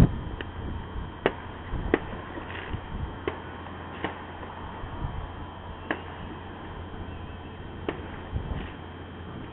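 Distant New Year's fireworks going off: irregular sharp bangs roughly every second or two, over a steady low hum and some rumble, heard through a narrow-band outdoor camera microphone.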